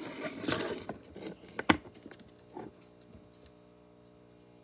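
Rustling and a few sharp plastic clicks as a hand reaches into a clear plastic guinea pig box, handling bedding or food. After that it goes quiet except for a faint steady hum.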